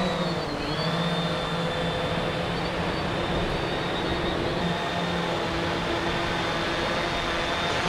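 Fishing drone's motors and propellers running with a steady whine as it flies out carrying the baited line.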